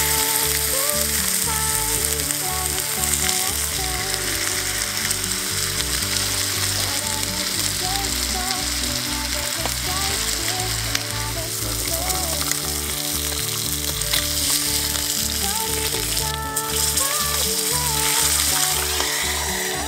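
Bacon sizzling and frying in a small iron frying pan over a gas camp stove, the sizzle briefly dipping about three-quarters of the way through.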